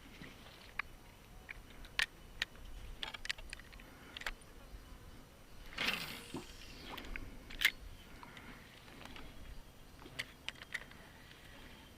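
Scattered small clicks and knocks from handling fishing tackle, with one short swish falling in pitch about six seconds in and a sharp click soon after.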